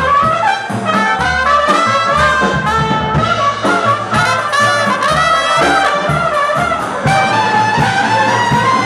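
Live band playing: trumpets carry a melody in a run of short notes over a drum kit keeping a steady beat.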